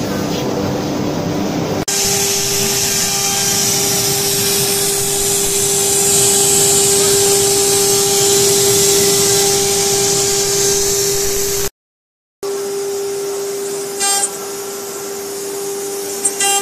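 CNC router spindle running and cutting, a steady whine over a broad hiss of cutting and coolant spray. The sound changes abruptly about two seconds in, drops out for a moment about two-thirds of the way through, then resumes with a few sharp ticks near the end.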